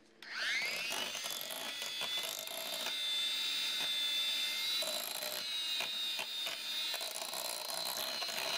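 Electric hand mixer starting up, its motor whine rising in pitch in the first second, then running steadily as the twin beaters mix milk powder into a thin cocoa mixture in a glass bowl.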